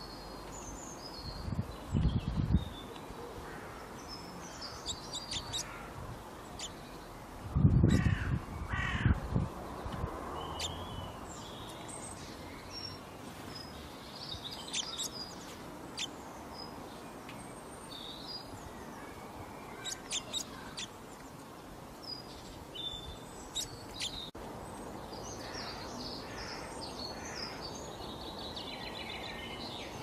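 Garden birds chirping and calling, many short high notes scattered throughout, with louder calls and low thumps about two seconds in and again around eight to nine seconds in.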